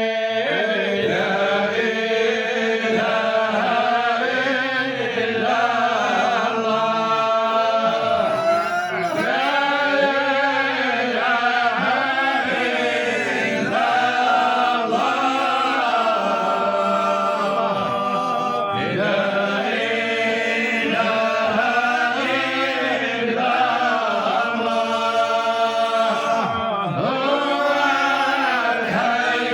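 Sufi devotional chanting: a voice sings a qasida in long, melismatic phrases, each syllable drawn out with pitch turns, over a steady held low note.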